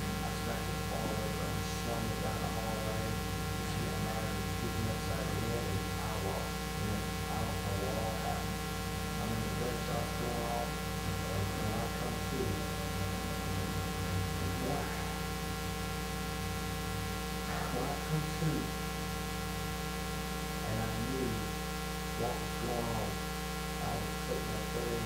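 Steady electrical mains hum with many overtones, over faint, indistinct speech.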